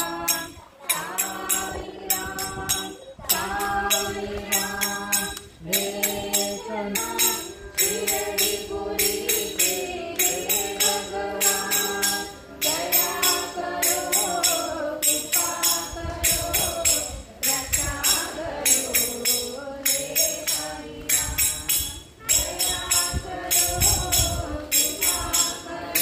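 Devotional bhajan singing in praise of Sai Baba, a sung melody over jingling percussion that keeps a steady beat.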